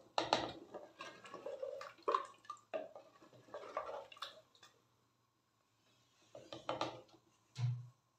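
Wooden spoon stirring and scraping wet chicken-and-spice masala in a clay cooking pot, with sharp knocks of the spoon against the pot's sides. The stirring stops about halfway through, then a few more scrapes and a dull thump come near the end.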